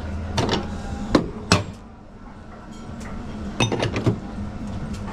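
Sharp knocks and clinks of metal coffee-making gear and crockery behind a café counter. There are a few single hits in the first two seconds, then a quick run of knocks about three and a half seconds in.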